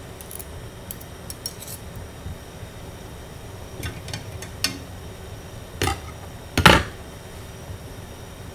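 A metal knife clinking and scraping against a ceramic plate and pan as cooked salmon is scraped off. There are a few light clicks in the first two seconds, then four sharper knocks and clatters of dishes, the loudest about seven seconds in.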